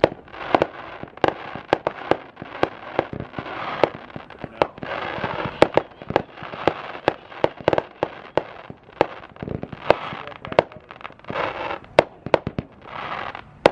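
Aerial fireworks show: many sharp, irregularly spaced bangs, sometimes several in a second, with short stretches of crackling between them.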